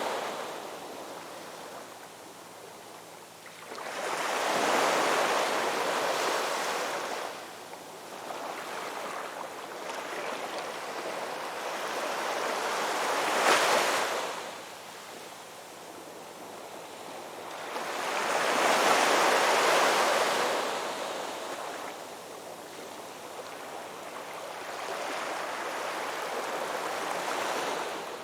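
Ocean waves breaking and washing up a beach in slow surges every six to eight seconds, with the sharpest crash about thirteen seconds in.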